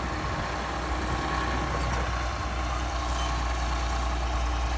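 Diesel engine of a 60-year-old bulldozer running steadily, a constant low rumble.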